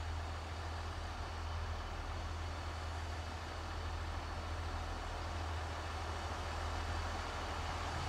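Shinkansen track maintenance vehicle's engine running steadily in a low, even drone, with an even hiss over it.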